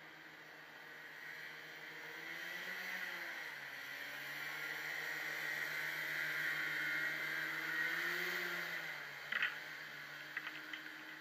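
Racing hovercraft engine and fan heard at a distance, swelling in and out. Its engine note rises and falls twice over a steady fan rush. A few sharp clicks come near the end.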